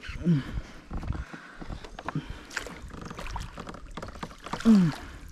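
Knocks, clicks and water sounds around a fishing kayak, with two short falling vocal exclamations, the louder one near the end.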